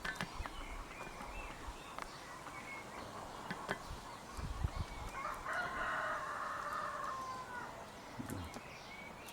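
A rooster crowing once: a single drawn-out crow starting about five and a half seconds in and falling away at the end. A few faint knocks come before it.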